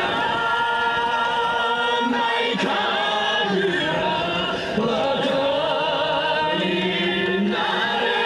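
Yosakoi dance music with a chorus of chanting voices, singing held notes that waver in pitch.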